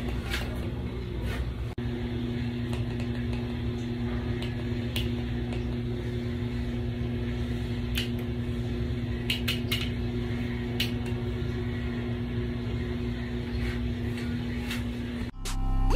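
Steady low mechanical hum with a couple of steady tones, such as a fan running, and a few faint clicks scattered through. Electronic music starts near the end.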